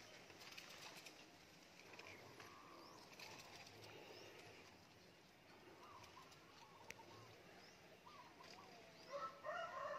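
Faint outdoor ambience with scattered bird chirps and short calls, a few louder calls coming close together near the end.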